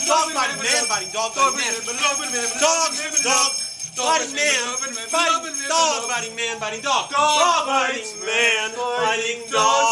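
Men's voices making rapid rising-and-falling, dog-like yelps and howls without words, over a continuous jingle of small bells.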